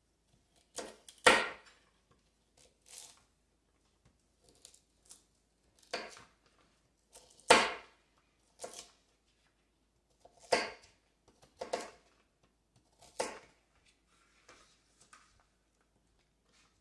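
Kitchen knife chopping raw carrots on a cutting board: separate sharp knocks of the blade cutting through into the board, one every second or two at an uneven pace.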